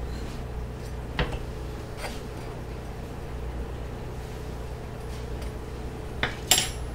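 Light clicks of kitchen utensils being handled at a griddle over a steady low hum: one about a second in and two close together near the end, the last the loudest.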